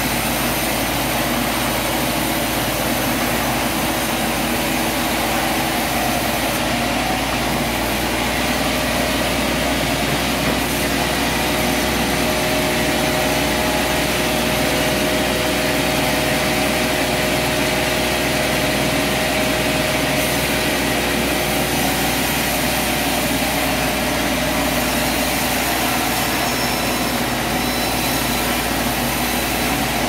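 Large vertical band sawmill running with a loud, steady mechanical drone, a faint steady whine standing out through the middle stretch.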